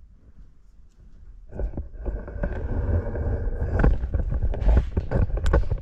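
Router running and cutting into a wooden test leg turning on the lathe, a steady whine under a dense patter of ticks from chips. It comes in about a second and a half in, grows louder and cuts off abruptly at the end.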